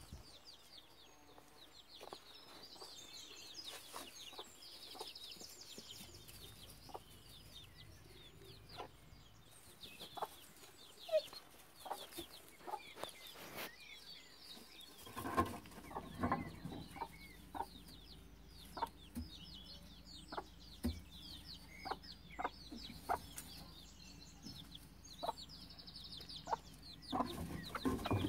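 Gauloise hen clucking softly in short, scattered calls, with chicks peeping early on; the clucking grows denser and a little louder about halfway through.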